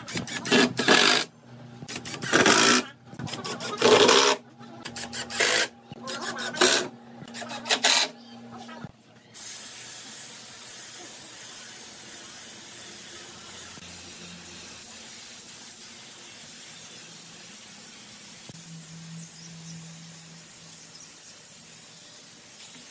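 Cordless drill driving screws into wood in a string of short bursts. About nine seconds in it gives way to the steady hiss of a compressed-air spray gun spraying finish.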